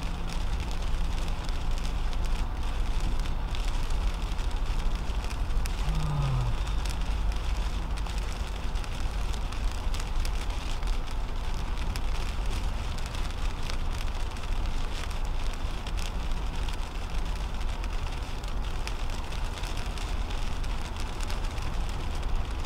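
Steady noise inside a 2010 Toyota Camry's cabin as it drives on a wet highway in rain: tyre hiss on the wet road and rain on the windshield over a low drone. A brief low falling tone sounds about six seconds in.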